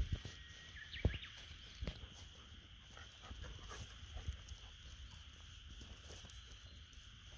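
Quiet outdoor ambience: a steady high hiss and low rumble with scattered soft thumps and rustles, and a short faint chirp about a second in.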